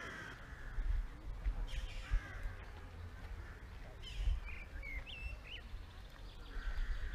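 Wind buffeting the microphone in uneven gusts, with faint distant voices and a few short bird calls about four to five seconds in.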